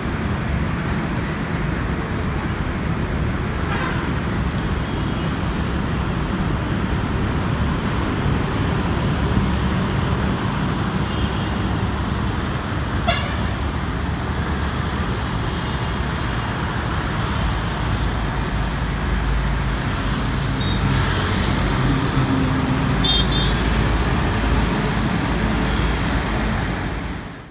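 Busy road traffic with a steady low rumble of buses and motorcycles passing, and several short horn toots scattered through it.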